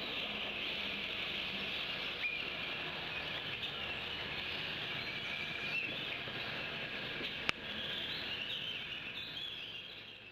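Steady background chorus of small birds chirping, with a single sharp click about seven and a half seconds in; the sound fades down near the end.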